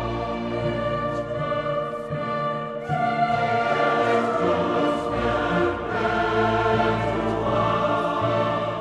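Background music: a choir singing sustained lines over orchestral accompaniment, growing louder about three seconds in.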